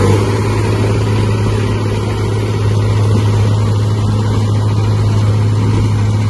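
Hürlimann H-6170T tractor's diesel engine running hard at a steady pitch under load, pulling a weighted sled.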